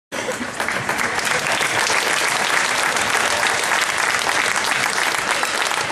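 Audience applauding, a steady crowd of clapping hands.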